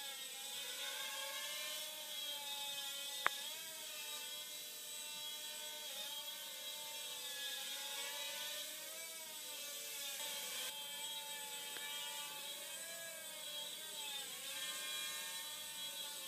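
Blade Nano QX quadcopter's four small electric motors and propellers whining in flight, the pitch wavering up and down as the throttle and stabilisation correct. A single sharp click about three seconds in.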